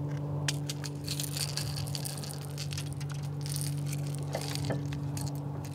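Irregular small clicks and scratchy handling noises as a largemouth bass is unhooked from a jerkbait's treble hooks, over a steady low hum.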